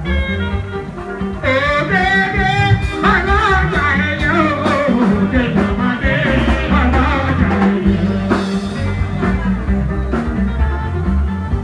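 Band music with a steady bass and drum pulse. A lead voice comes in singing about a second and a half in, with long wavering sung lines.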